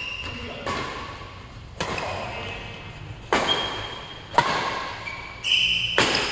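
Badminton racket strikes on a shuttlecock in a doubles rally: five sharp hits, roughly one a second, each echoing in the large hall. Short shoe squeaks on the court mat come between the hits, the longest just before the last hit.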